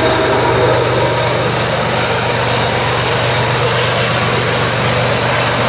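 Diesel engine running steadily at a constant pitch and level.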